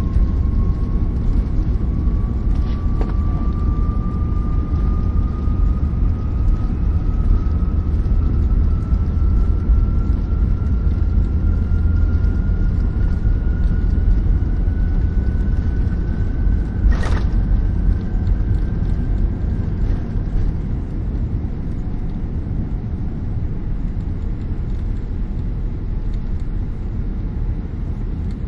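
Boeing 787-9 during takeoff, heard from inside the passenger cabin: a heavy, steady rumble with an engine whine that rises slowly in pitch. There is a single sharp click about two-thirds of the way through, and the noise eases slightly near the end.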